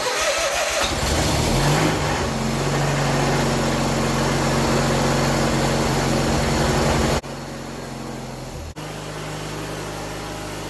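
John Deere 317 garden tractor engine starting suddenly and running loud and steady, picking up slightly in its first couple of seconds. About seven seconds in it drops sharply in level and runs on more quietly.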